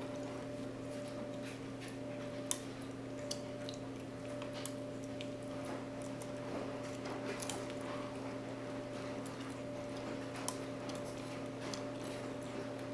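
A lock being picked: a pick working the pins inside the cylinder gives sparse small metallic clicks and ticks, the sharpest about two and a half seconds in, over a steady electrical hum.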